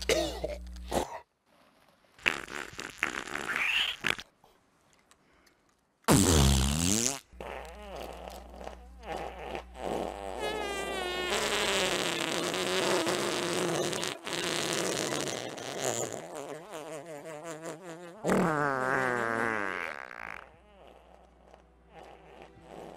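A string of comedic fart sound effects with short silent pauses between them: a loud one about six seconds in that drops in pitch, then a long wavering one, and another falling one near the end.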